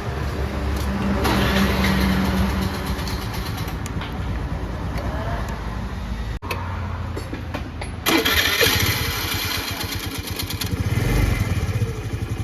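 2015 Honda Dio scooter being electric-started and running, with the abnormal starting noise that the owner likens to the Bendix starter gear catching. A mechanic traced it to a starter pinion that sticks and does not return. The sound breaks off briefly about six seconds in and comes back louder around eight seconds.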